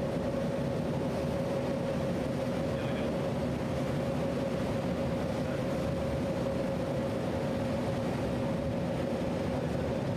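Fireboat's engines running steadily under way: an even, unbroken drone with a constant humming tone on top.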